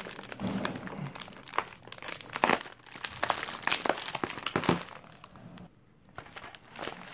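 Bubble wrap and taped plastic packaging crinkling in irregular crackles as it is pulled and torn open, pausing briefly about six seconds in.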